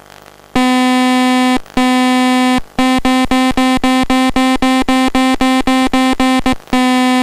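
Buzzy electronic beeping at one fixed pitch from the FPV telemetry audio. There are two long beeps of about a second each, then a run of short beeps about four a second, then a long tone again near the end.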